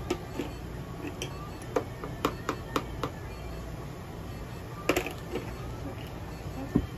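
Scattered light clicks and taps from a cat being handled on a stainless-steel exam table, over a steady low hum. A cluster of taps comes a couple of seconds in, another about five seconds in, and a single one near the end.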